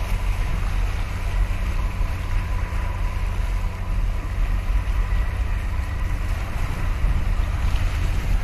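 Wind buffeting the microphone, a heavy, fluttering low rumble, over the wash of choppy sea water, with a faint steady high whine underneath.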